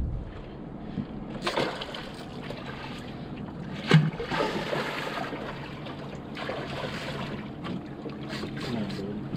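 Water splashing and sloshing alongside a small boat, in several noisy passages, with one sharp knock about four seconds in.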